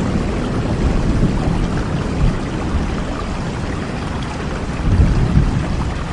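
Steady rain falling, a dense even hiss over a low rumble that swells briefly about five seconds in.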